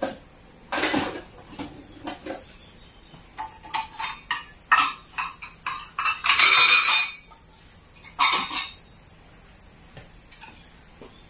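Metal cutlery and a small stainless-steel pot clinking and clattering as they are rummaged in and lifted out of a plastic dish basket: a run of separate clinks, with a longer rattling clatter about six seconds in.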